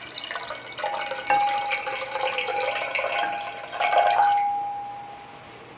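Water poured in a thin stream from a glass measuring jug into a glass vase, splashing into the water already in it, with a ringing note from the filling vessel. The pour tapers off and stops about three-quarters of the way through.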